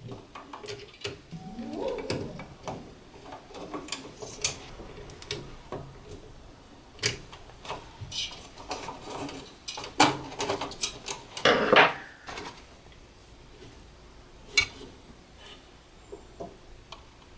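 Scattered small clicks, taps and scrapes of hands working a wire into the screw terminals of a contactor in an electrical control cabinet, with two louder handling noises about ten and eleven and a half seconds in.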